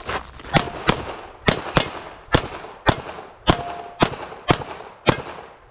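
A pistol fired in a string of about ten shots, roughly two a second, the first ones in quick pairs. A steel target plate rings briefly after a couple of the hits.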